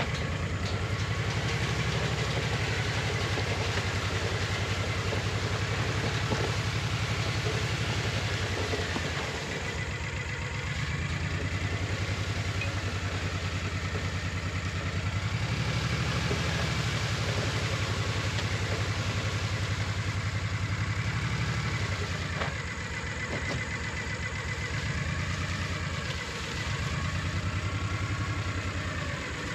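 Small vehicle engine running steadily under way, its speed rising and easing off several times.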